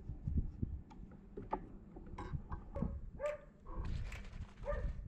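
A dog giving several short, pitched whines and yelps, mostly in the second half, over faint scattered clicks and knocks.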